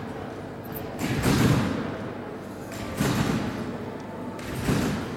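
Trampoline bed and springs thudding each time a gymnast lands and rebounds during a routine, three landings evenly spaced about 1.8 s apart.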